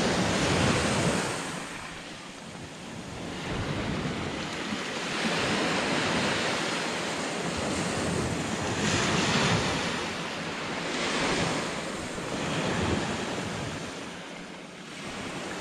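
Sea waves breaking and washing on the shore: a rushing noise that swells and fades every few seconds, with wind buffeting the microphone.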